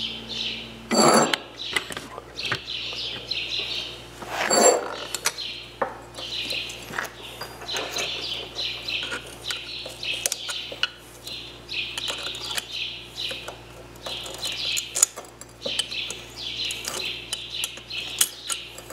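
Metal clicking and scraping of a screwdriver prying a stubborn snap ring out of the top of a 2000 KTM 300 EXC fork tube, with two louder metallic clinks about one second and four and a half seconds in. Birds chirp continually in the background.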